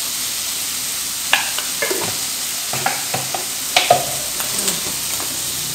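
Snails stir-frying in a frying pan with a steady sizzle. About a second in and until near the end come several short, sharp clicks and clinks of a kitchen utensil.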